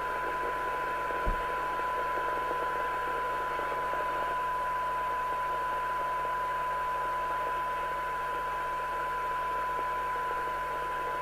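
Rotel RVC240 FM CB receiver's speaker playing a steady test tone mixed with hiss: a weak generator signal being received while its sensitivity is measured. One faint low thump sounds about a second in.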